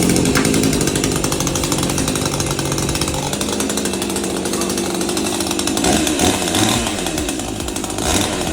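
Husqvarna 543 XP two-stroke chainsaw running on its first start. It runs higher at first, settles lower after about three seconds, then its pitch wavers up and down near the end.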